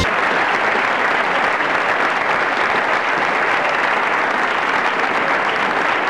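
A crowd applauding, steady dense clapping with no music.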